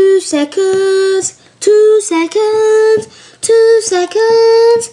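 A boy singing a wordless tune on "da" syllables, in short phrases of held notes with quick steps between them.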